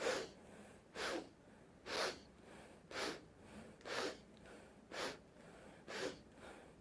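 Short, sharp, noisy sniffs in through the nose, evenly paced at about one a second, seven in a row: rhythmic breathing-exercise inhales, each taken with a squat and turn of the body.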